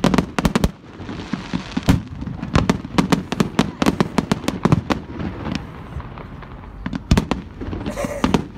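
Fireworks display: aerial shells bursting in a rapid, irregular string of sharp bangs, thinning to a short lull past the middle before another cluster of bangs.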